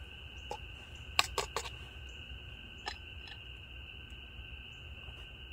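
A metal spoon clinking and scraping inside a titanium mug as chili beans are stirred over an alcohol stove: a few light clinks, the loudest about a second in. A steady high-pitched animal chorus carries on behind.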